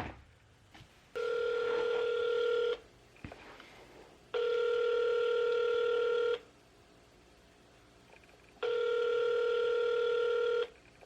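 Telephone ringback tone of an outgoing call: three long, steady rings with pauses between, the call going unanswered.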